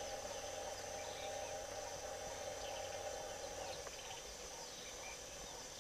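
Steady high-pitched insect chorus with a few faint bird chirps. A low hum underneath stops about four seconds in.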